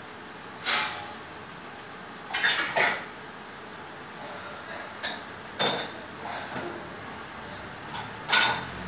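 Stainless steel bowl clinking on a stone floor as a Lhasa Apso puppy noses into it to drink milk: a series of sharp clinks at irregular intervals, the loudest near the end.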